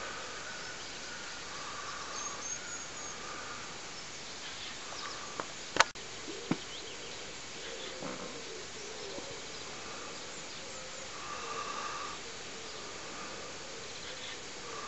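Outdoor ambience: a steady hiss with faint, repeated distant calls, broken by three sharp clicks about five to seven seconds in, the middle one loudest.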